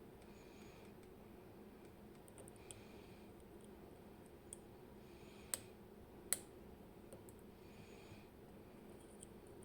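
Faint, scattered clicks of lockpicking tools working the side pins of a Robur safe deposit lock, with two sharper clicks about five and a half and six and a half seconds in.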